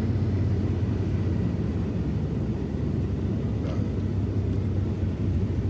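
Ram 4x4 pickup driving, heard from inside the cab: a steady low rumble of engine and tyre noise.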